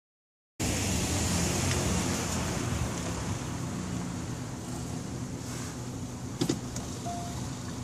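Kia K5 (Optima) engine idling steadily, with a sharp double click about six and a half seconds in and a short faint beep just after.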